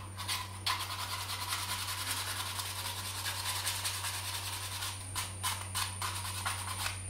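Sandpaper rubbed quickly back and forth over a cut PVC pipe handle, smoothing the sawn edges; the strokes become more distinct near the end.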